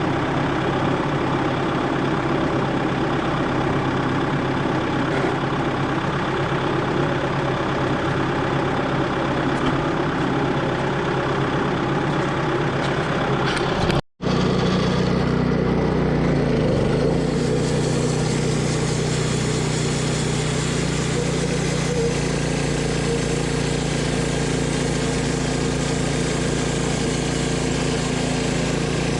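Engine of a Wood-Mizer LT10 portable bandsaw mill running steadily. The sound breaks off for an instant about fourteen seconds in, then resumes with a steadier hum.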